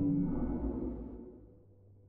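The deep, low swell of the soundtrack's sound design fades away over about a second and a half, with a faint steady high tone above it.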